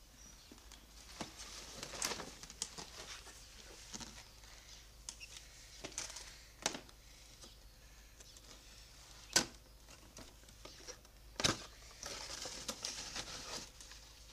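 Cardboard toy box being handled and opened: scattered rustles and light taps of the flaps and packaging, with two sharper knocks about nine and eleven seconds in.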